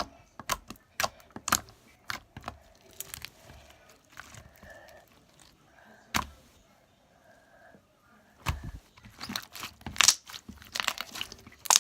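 Slime being squeezed and stretched by hand, making sticky pops and crackles that come thickest near the end.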